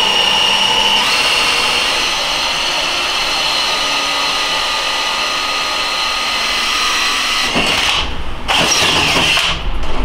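Cordless drill boring a pilot hole through a metal plate: a steady motor whine that steps up in pitch about a second in and stops about three-quarters of the way through.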